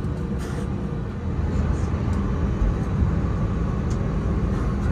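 Steady low rumble inside the cabin of an Airbus A320 on the ground with its engines running at idle. It grows slightly louder about a second in.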